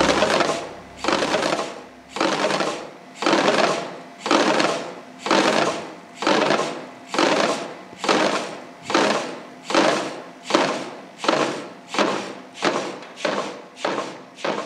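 Modular Rhythm Machine drumming: servo-driven wooden sticks striking its wooden panels in a slow pulse that speeds up steadily, from about one stroke a second to about two a second.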